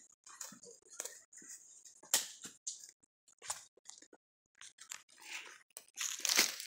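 Footsteps crunching through dry leaf litter on a forest floor, irregular crunches about two a second with a brief pause near the middle and denser rustling near the end.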